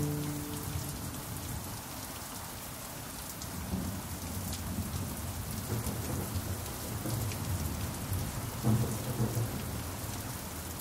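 Steady rain with low thunder rumbling from about four seconds in. The last note of a pan drum dies away in the first second.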